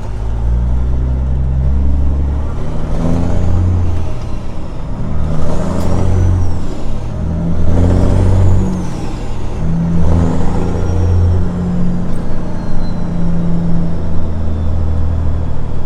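Semi-truck diesel engine pulling away and working up through the gears: the engine note climbs, then drops back at each shift, several times over. A faint high whistle rises and falls with the revs.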